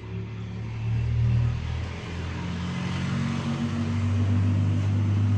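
Automatic washing machine running, a steady low hum and rumble that swells about a second in, eases briefly, then builds again through the rest.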